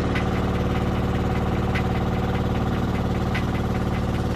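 Outrigger fishing boat's engine running steadily as the boat motors along, with a faint sharp tick recurring about every second and a half.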